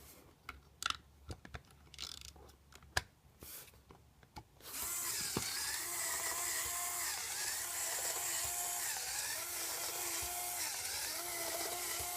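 Scattered clicks and knocks of Lego Technic plastic parts being handled. About five seconds in, a small electric motor starts and drives the rowing boat model's gear mechanism, its whine dipping in pitch in a repeating cycle a little slower than once a second as the load rises and falls.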